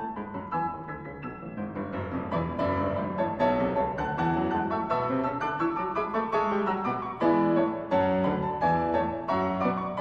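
Background piano music, a continuous flow of notes that grows louder about two seconds in.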